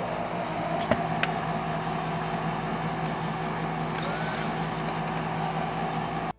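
Cordless drill with a 3/8-inch masonry bit boring into concrete, without hammer action, its motor running steadily under load, with two sharp ticks about a second in. It cuts off abruptly near the end.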